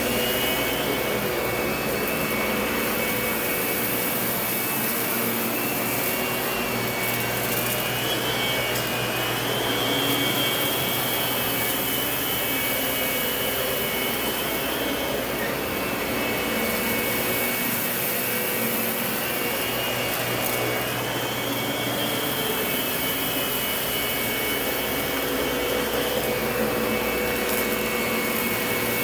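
Lindhaus vacuum cleaner running steadily while vacuuming, a constant rushing with a high motor whine that wavers slightly in pitch now and then.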